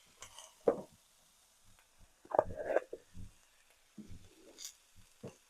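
A few separate light knocks and clinks of kitchen utensils and containers being handled, spread across a few seconds. The pan is not sizzling audibly.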